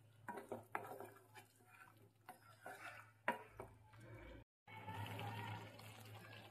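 A spoon or spatula stirring a pan of chicken curry, with scattered clicks and scrapes against the pan over a faint steady hum.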